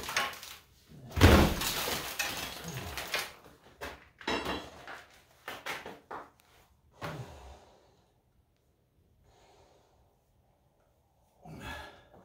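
Old stucco being pried and broken off a wall: a long crunching crash about a second in as chunks come away and fall, followed by several separate knocks and clatters.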